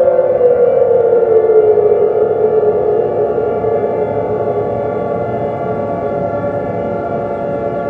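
Outdoor tornado warning siren wailing: its tone glides down in pitch over the first couple of seconds, then holds steady as the sound slowly eases off.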